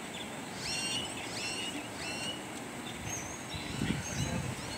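Small birds chirping: three quick, repeated chirps in the first half, then thinner high whistled notes, over a steady outdoor background hiss. A brief low rumble comes about four seconds in.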